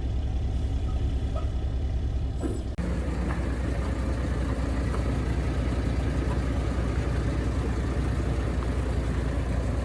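Large engine idling steadily with a deep, even drone, broken by a brief abrupt drop just under three seconds in.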